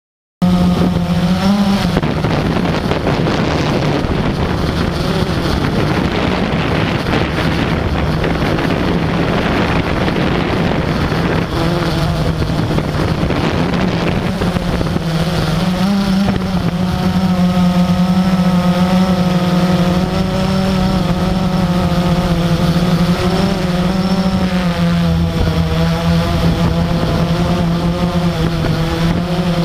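Radio-controlled model aircraft's motor running steadily, heard close up from a camera mounted on the aircraft, its pitch wavering slightly with throttle changes. It starts abruptly about half a second in.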